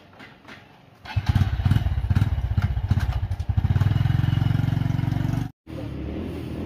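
A small engine starts about a second in and runs, uneven at first and then settling into a steady drone. It breaks off briefly near the end and then carries on quieter.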